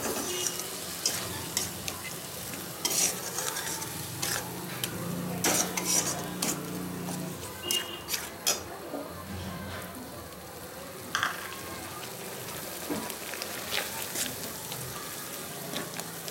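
Metal spatula stirring and scraping a thick onion-paste and curd masala around a metal kadai, with irregular scrapes and clicks of the spatula on the pan. Under it, a steady sizzle of the masala frying on medium heat.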